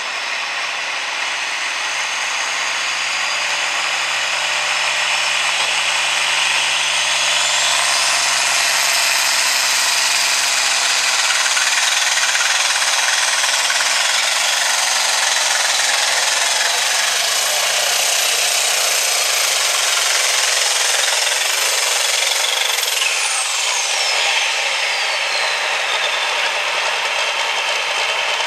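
International Harvester Turbo farm tractor's diesel engine at full power pulling a weight-transfer sled, loud and steady. A high turbo whistle climbs steeply about a quarter of the way in, holds, then falls away near the end as the power comes off.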